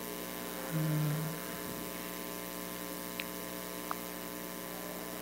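Steady electrical hum from interference on the stream's audio, a constant buzz made of many steady tones. A brief louder low tone sounds about a second in, and two faint clicks come a little after three seconds and near four seconds.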